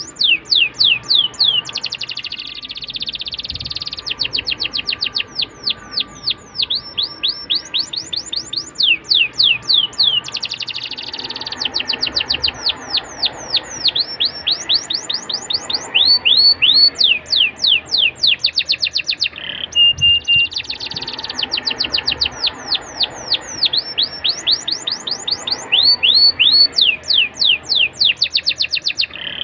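Domestic canary singing a long, continuous song: quick rolls of rapid downward-sweeping notes alternating with dense buzzy trills, broken twice by a short held whistle, once about two-thirds through and again near the end.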